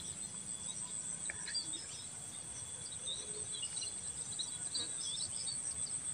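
Insects trilling steadily at a high pitch, with scattered small bird chirps.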